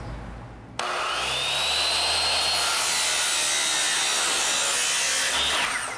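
Bosch circular saw fitted with a metal-cutting blade, cutting through a metal channel: a loud, steady grinding with a high whine that starts suddenly about a second in. Near the end the whine drops in pitch as the saw is released and winds down.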